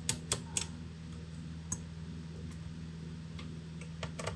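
Sharp small clicks and taps from a screwdriver and fingers handling a laptop's plastic case: three quick ones at the start, one more after a second and a half, and two near the end, over a steady low hum.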